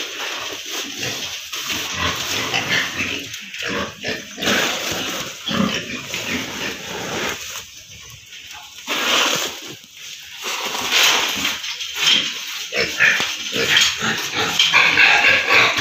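Pigs squealing in irregular bursts at feeding time, as scoops of rice bran are poured into their troughs; the noise is loudest near the end.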